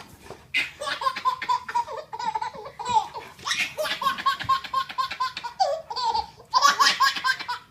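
Baby laughing hard in a long run of short, quick bursts, about three a second.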